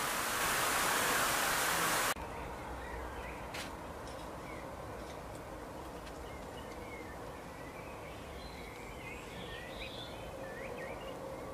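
A steady rushing of pond water for about two seconds, then cut off. After that, European goldfinches give short, scattered twittering chirps at a seed feeder, more of them near the end.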